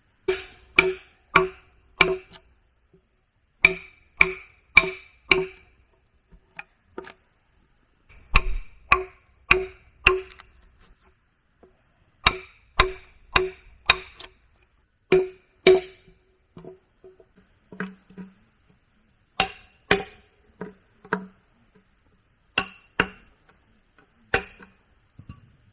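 Repeated blows of a tool striking wood, in runs of four or five about two a second with short pauses between. Each blow rings briefly at the same pitch.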